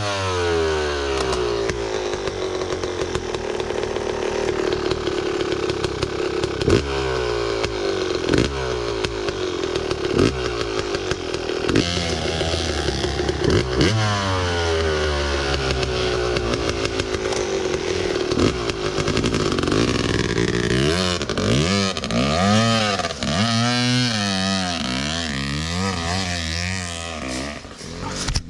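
Yamaha enduro dirt bike engine running and being revved, the revs rising and falling again and again, most quickly in the last several seconds.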